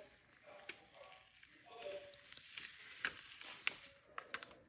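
Thin plastic film crackling as vinyl lettering and a clear transfer sheet are peeled and handled, with scattered small clicks and taps.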